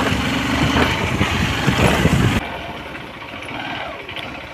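A vehicle engine running with a steady low hum. It cuts off abruptly about two and a half seconds in, leaving quieter background noise.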